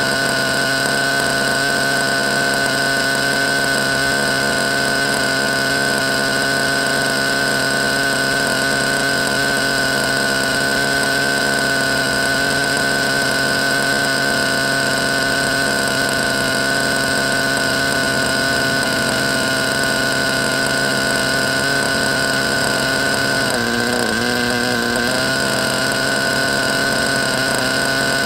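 Nitro (glow-plug) engine of a 1/8-scale RC buggy idling steadily on the stand. About two thirds of the way through, its pitch dips and wavers for a second or so, then settles again.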